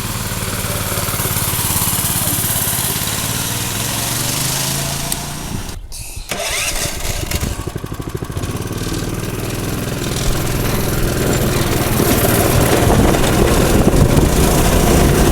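Go-kart's small gasoline engine running steadily, then after a short dip about six seconds in it runs louder and rougher, building toward the end.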